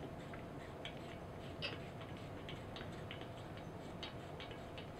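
Faint, irregular light ticks and clicks of metal on metal as an extension tube is turned by hand onto the threaded end of an air rifle barrel.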